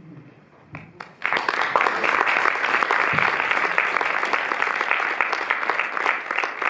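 Crowd applauding, breaking out about a second in after a short pause and going on steadily.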